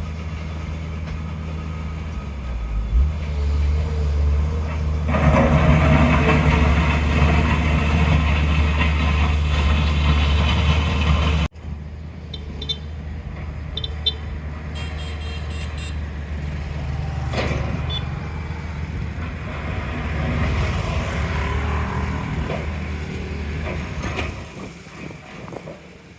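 Diesel engines of heavy construction machinery running. The engine note steps up about three seconds in and gets louder under load. After an abrupt break comes a quieter engine sound with a few short high beeps.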